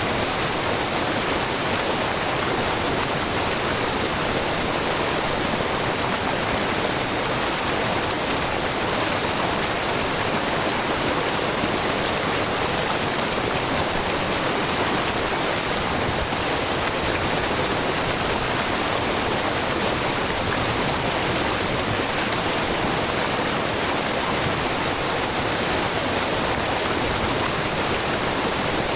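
Steady rush and splash of a low, wide waterfall, many thin streams of spring water pouring over a rock face into a pool. An even, unbroken sound with no change.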